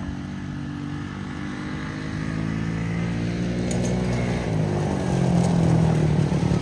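Polaris RZR 170's single-cylinder four-stroke engine, freshly rebuilt with a new cylinder and Wiseco piston, running at steady throttle as the mini side-by-side drives closer, growing louder toward the end.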